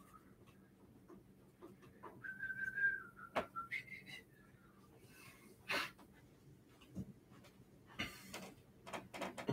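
A man whistling softly, a few short held notes about two to four seconds in, with faint clicks and rustles.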